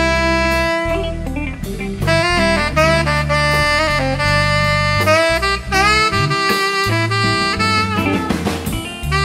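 Tenor saxophone playing a solo over a live band's bass and drums, the melody moving note to note with a few notes scooped upward partway through.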